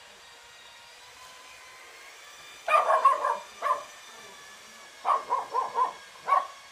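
A dog barking in short sharp barks: a cluster about three seconds in, then a quick run of four or five barks and a couple of single barks near the end.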